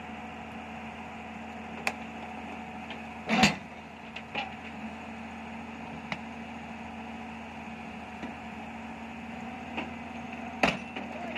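Heavy diesel machinery running steadily with a constant hum. A few sharp knocks sound over it, the loudest about three and a half seconds in and another near the end.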